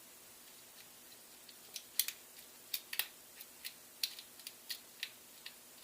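Lock pick clicking and scraping against the pins of a see-through practice lock during single pin picking: a run of small, irregular metallic clicks that begins a little under two seconds in.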